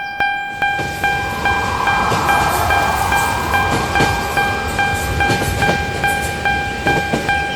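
Japanese level-crossing warning bell ringing in a steady, rapid repeat of about two or three dings a second. A train passes for most of its length: a rumble with clacking wheels that builds up about a second in and dies away near the end.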